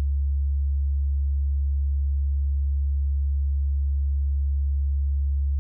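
A steady, deep sine tone held at one low pitch, unchanging in level, as a sustained drone in an experimental electronic piece.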